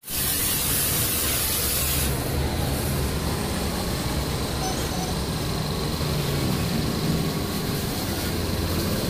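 Hose spray hissing onto a foam-covered motorcycle, a hard high hiss that cuts off about two seconds in, then a steadier, softer wash of noise over a low rumble.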